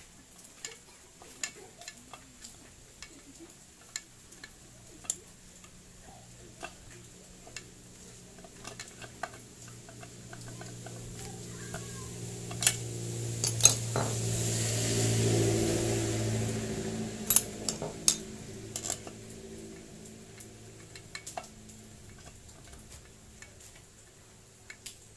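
Metal clinks and knocks of small four-stroke generator engine parts (aluminium crankcase, crankshaft, gears) being handled and fitted together by hand, scattered and irregular. About midway, a low hum with hiss swells up over several seconds and fades away again.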